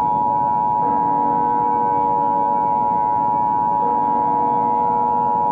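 Emergency Alert System attention signal: two steady pitched tones sounding together without a break, a loud and unwavering electronic alarm.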